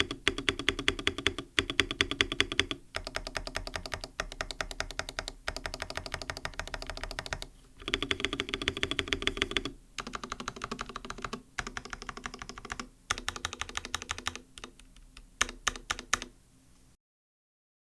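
Stabilized keys (spacebar, enter, shift and the like) on an mStone Groove T mechanical keyboard with lubed MMD Coral linear switches and silicone plate foam being pressed rapidly over and over, in runs of a second or two with short pauses between, demonstrating how the stabilizers sound. The tapping cuts off shortly before the end.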